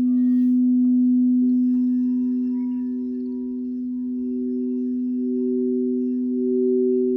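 Crystal singing bowls ringing: one bowl holds a steady low tone, and a second, higher bowl comes in about a second and a half in and swells, its volume rising and falling slowly.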